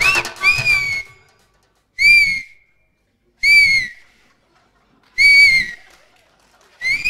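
A woman whistling with her fingers in her mouth: a series of short, loud, shrill whistles, roughly one every second and a half, each a brief note that rises and dips a little in pitch.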